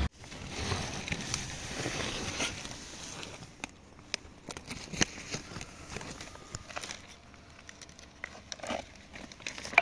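A woven plastic sack and a plastic bag crinkling and rustling in scattered, irregular crackles as they are handled, with the rescued cobra inside. The sound is busier for the first few seconds, then fainter.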